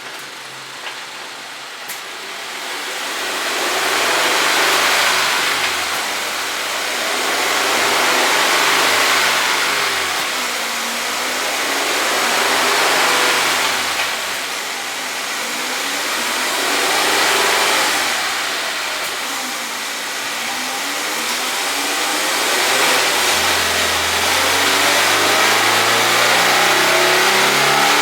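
A 2024 Toyota GR86's 2.4-litre flat-four running on a chassis dyno, the revs rising and falling in slow swells several times, then climbing steadily from about two-thirds of the way through as a dyno pull gets under way.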